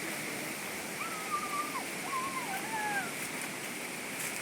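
Steady rushing of flowing stream water, with two thin, wavering whistle-like calls: one about a second in and another about two seconds in, lasting roughly a second each.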